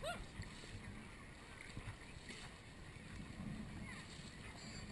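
Small sea waves lapping and sloshing around a camera held at the water's surface, with a short rising cry at the very start and small splashes of a swimmer further off.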